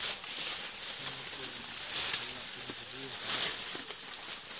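Forest ambience: a steady high hiss with scattered rustles and crackles, the sharpest about two seconds in, and faint low voices murmuring.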